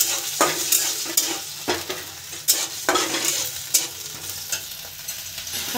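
Metal spatula stirring freshly added curd into hot tempering oil in a kadai, scraping and clacking against the pan several times over a steady sizzle: the curd being tempered (chhunka) for dahi pakhala.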